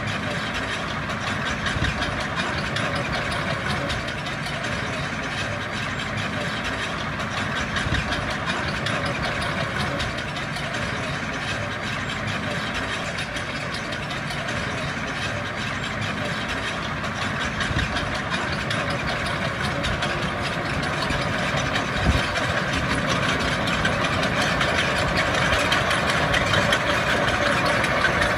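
Diesel engine of heavy earthmoving machinery running steadily, growing louder toward the end, with a single sharp knock about three-quarters of the way through.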